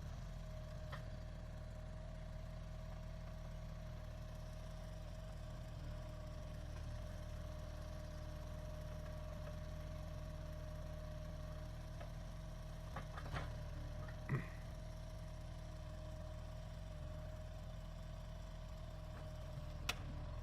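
Faint, steady low machine hum with a constant tone over it, broken by a few light knocks about two-thirds of the way through and a click near the end.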